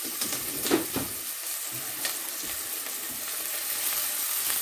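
Chopped onions and cumin seeds sizzling steadily in hot oil in a heavy enamelled casserole pan, just after the onions went into the oil, with a few sharp knocks as a plastic spatula stirs them, the loudest about a second in.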